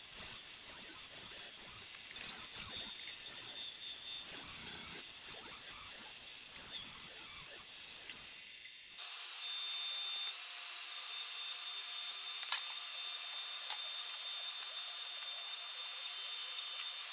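Bandsaw running and cutting a thin wooden board, with an uneven rasp as the blade works through the wood. About halfway through, the sound cuts abruptly to a steadier, thinner hiss with no low end.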